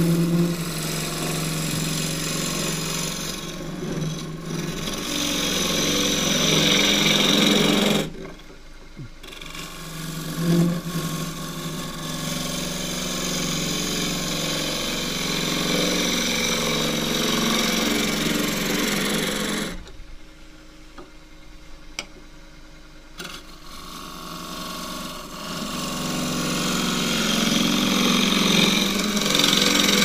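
Half-inch deep-fluted bowl gouge cutting the inside of a green casuarina bowl spinning on a lathe: a steady rushing hiss of wet shavings being cut away. It comes in three long passes, with a short break about eight seconds in and a longer one of about three seconds around twenty seconds in.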